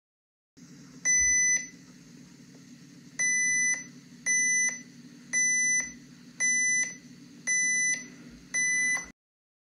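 Underwater acoustic beacon test set beeping through its speaker as it picks up the DK120/90 beacon's pulses: seven short high beeps, about one a second, over a faint low hum. The steady pulsing shows that the beacon is working after its battery replacement.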